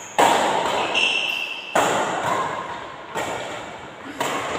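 Badminton rackets striking the shuttlecock in a rally, four sharp hits about one every second and a half, each ringing on in the hall's echo.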